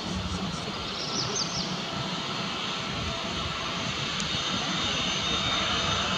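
Boeing 737-800's CFM56-7B turbofan engines at taxi power: a steady jet rumble, growing slightly louder as the airliner turns toward the listener, with a high engine whine coming up near the end.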